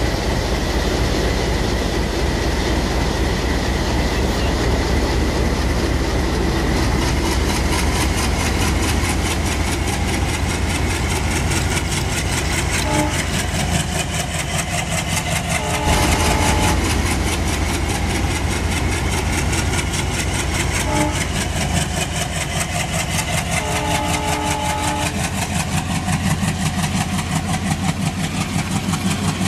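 Battery-powered toy trains running on plastic track: a steady motor and gear whir with a fast, even clicking of wheels over the track, and a few short pitched tones in the middle stretch.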